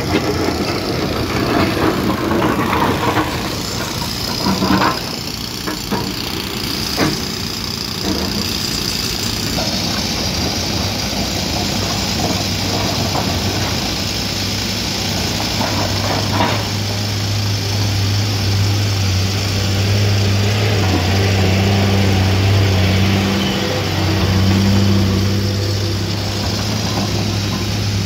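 Heavy diesel engine of a Hyundai 215 hydraulic excavator running continuously at work, its low hum growing stronger a little past halfway. A few sharp knocks stand out in the first several seconds and once more near the middle.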